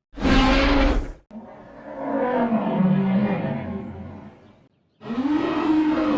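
Fan-made Godzilla roar sound effects: three separate roars, a short one, then a longer one that wavers and falls away, then a third starting about five seconds in.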